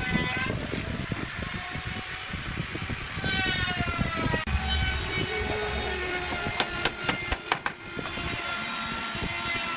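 Electric drill-driver motor whining as it drives screws into hardwood, its pitch shifting as the load changes. A few sharp knocks come a little after the middle.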